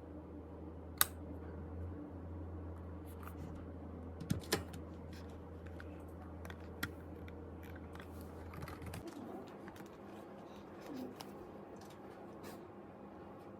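Scattered light clicks and taps, over a steady low hum that cuts off about nine seconds in.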